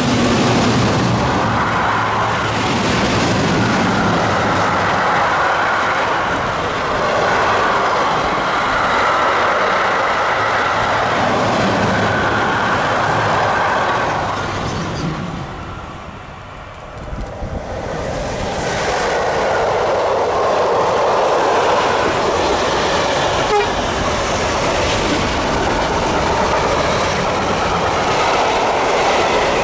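Trains passing on the line with a loud rumble of wheels on rails. The noise dies down about sixteen seconds in, then builds again as a second train comes through.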